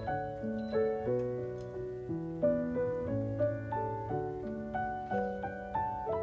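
Background piano music: a melody of struck notes, about two a second, over lower held notes.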